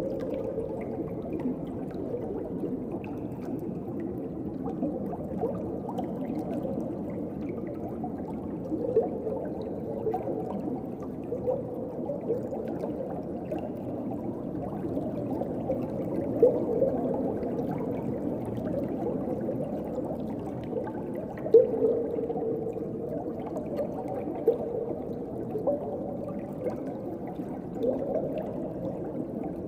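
Underwater ocean ambience: a steady, muffled wash of water with short bubbling gurgles every few seconds.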